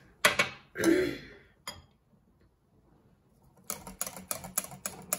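A utensil clinks against a glass bowl, and after a short quiet spell a wire whisk starts beating a butter-and-oil mixture in a glass bowl: fast, even ticks of the wires against the glass, about six a second.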